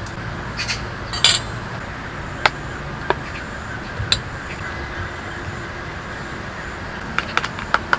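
A metal spoon clinks against a stainless steel bowl as sauce ingredients are spooned in: a few scattered clinks, then a quick run of stirring clinks starting near the end.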